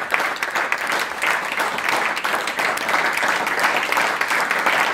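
A roomful of people applauding, a dense, steady patter of many hands clapping.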